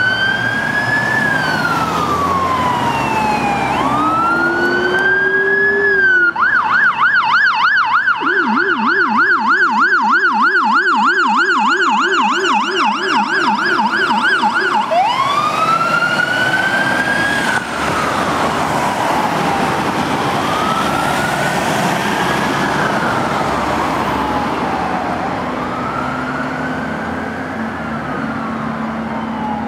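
Fire engine electronic sirens wailing with slow rising and falling sweeps. Partway through they switch to a fast yelp for about eight seconds, with a Rumbler low-frequency siren yelping at a much lower pitch beneath it. Then they return to wailing, with two sirens sweeping out of step.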